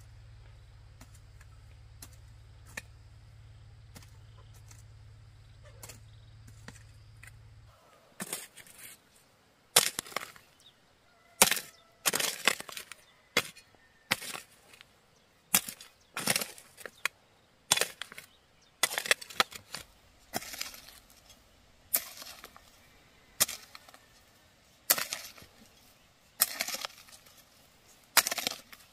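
A hand hoe chopping into dry, stony soil. Sharp strikes come about every second and a half, each followed by a short rattle of loosened earth and pebbles. The strikes turn loud about eight seconds in, after a stretch of faint ticks over a low steady hum.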